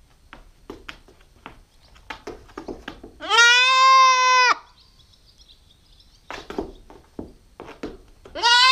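Nubian goat kid bleating loudly: one long call at a steady pitch about three seconds in, and another starting near the end. Faint clicks and knocks are heard between the calls.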